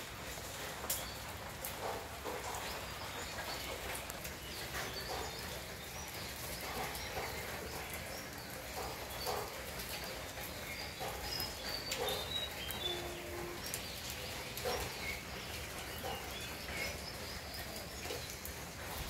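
Outdoor ambience: scattered bird calls and chirps over a steady background hiss, with irregular short taps throughout.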